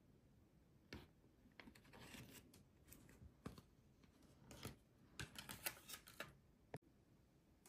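Faint rustling and clicking of a paper ingredient packet being emptied into a plastic toy potion bottle and the bottle being handled, with one sharp click near the end.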